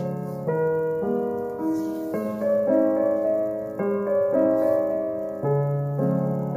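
Gentle background piano music, its chords changing about twice a second.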